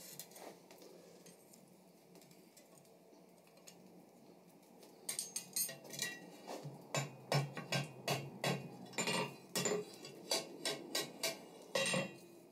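Tongs and hot steel knocking against the anvil face as a bar is bent into a loop: irregular light metallic clinks and taps, a few a second, starting about five seconds in after a quiet stretch.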